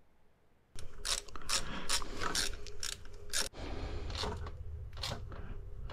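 Quarter-inch ratchet clicking in repeated short strokes as the thermostat housing bolts are run down and tightened; it starts about a second in.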